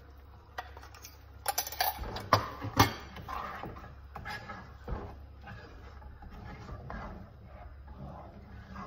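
Wooden spatula stirring thick tomato gravy in a cooking pot: irregular scraping and clicking, with two sharp knocks of the spatula against the pot about two and a half seconds in.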